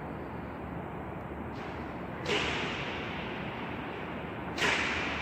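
Steady hiss-like background noise that jumps suddenly louder and brighter about two seconds in, and again near the end.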